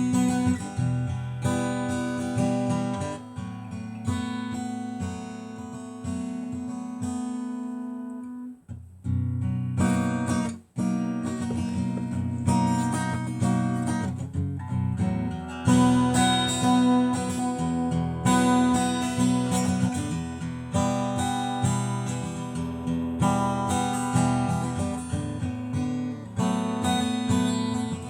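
Acoustic guitar strumming chords with no singing, with two brief breaks in the playing about nine and eleven seconds in.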